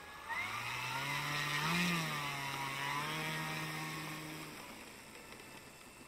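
Engine of a Seagull Junkers CL-1G radio-controlled model plane running as it taxis. It swells and rises briefly in pitch about two seconds in, then fades away.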